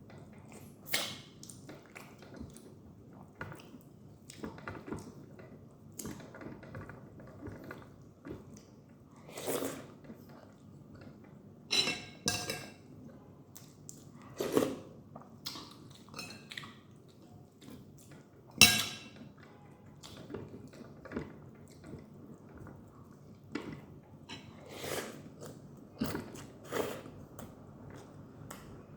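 Close-up eating sounds: a person chewing a meal of Indomie noodles, egg and rice, with irregular short, sharp mouth sounds scattered through it, the loudest about two-thirds of the way in.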